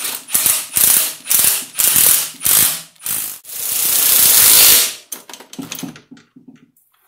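Ratchet wrench on a long extension running in a motor mount bolt: several short ratcheting bursts about half a second apart, then one longer continuous run of about a second and a half, then a few light clicks.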